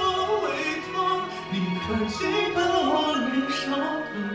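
Background music: a slow Chinese pop song with a singing voice over instrumental accompaniment.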